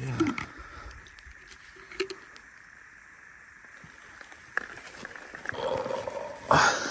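A man drinking from a water bottle: a few faint clicks, then soft swallowing sounds from about five seconds in, and a short loud rush of noise near the end.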